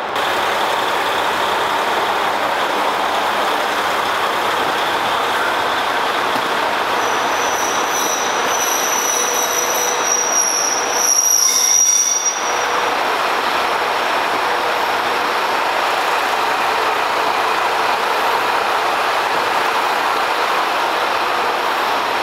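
A train rolling along the rails at a station, with a high-pitched wheel squeal rising over the running noise from about seven seconds in and stopping abruptly around twelve seconds.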